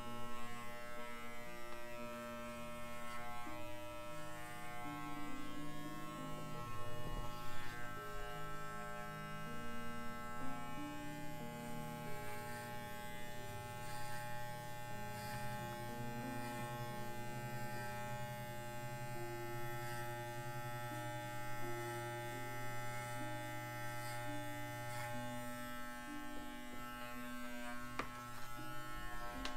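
Corded electric dog clippers running with a steady hum as they trim a miniature schnauzer's coat.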